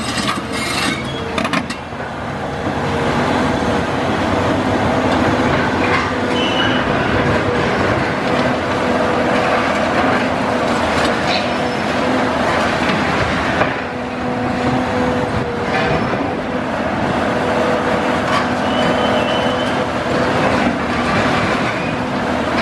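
Caterpillar 374F UHD demolition excavator working: its diesel engine and hydraulics run with a steady drone while its attachment breaks down concrete. Crunching and scattered knocks of rubble falling ride over the top.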